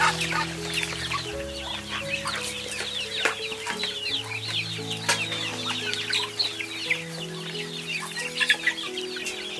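A flock of ducklings and chicks peeping continually, many short high chirps overlapping, over soft background music of long held notes.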